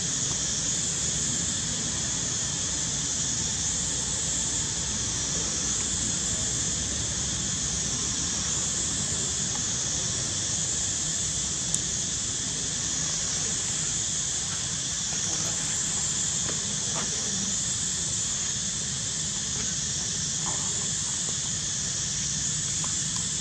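Cicada chorus: a steady high-pitched buzz that swells and fades every two or three seconds, over a low rumble, with one brief click about halfway through.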